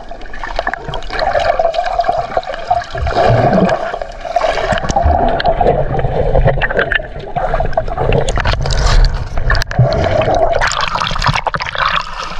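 Muffled underwater sound from a submerged action camera: water rushing and gurgling around the housing, with scattered low knocks. Near the end it turns splashier as the camera breaks the surface.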